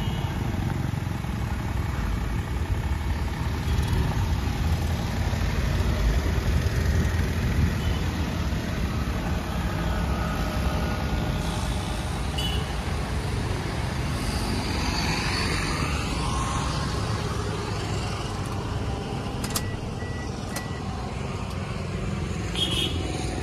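Steady road-traffic noise from a busy road, a continuous low rumble, with a few faint clicks near the end.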